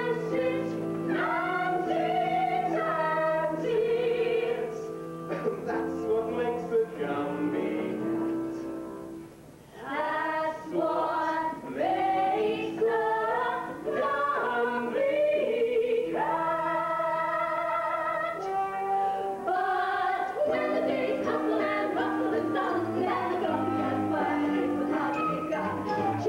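Live stage-musical music: an orchestra playing with singing voices, with a brief lull about nine seconds in before the music picks up again.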